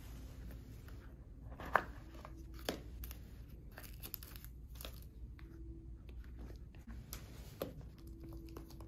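A small cardboard gift box with a chocolate inside is opened by hand. The sleeve is slid off the tray, and fingers prise the foil-wrapped chocolate out, giving a scatter of light taps and clicks with soft rustling of card and foil. Two sharper taps come within the first three seconds.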